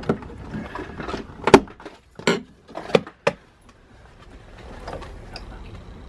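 About five sharp plastic clicks and knocks in the first three and a half seconds, from hands working the hinged cover and plug of a caravan's outdoor mains fitting to test a newly installed switch.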